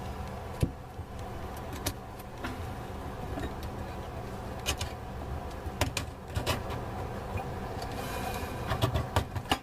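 Scattered light clicks and knocks of parts being handled and fitted under a bathroom sink, over a steady low hum.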